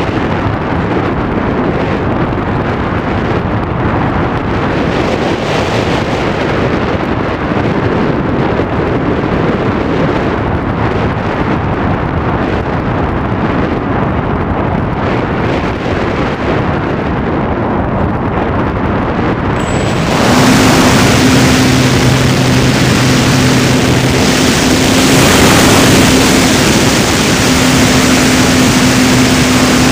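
Wind rushing over the microphone in flight. About twenty seconds in, it gives way suddenly to a louder, steady engine drone with a low, even hum.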